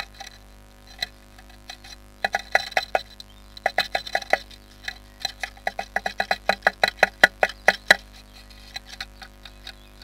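Blue tit pecking at the wooden wall of its nest box, chipping off splinters. There are a few scattered sharp taps, then from about two seconds in, quick runs of loud taps at about five a second, which thin out near the end.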